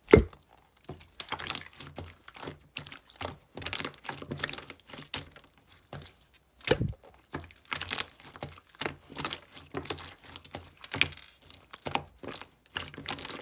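Clear slime mixed with plastic beads being squeezed and pressed by hand: a dense, irregular crackling and clicking of the beads in the slime.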